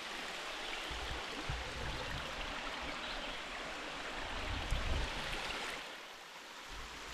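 Steady rush of a flowing stream, easing off slightly near the end.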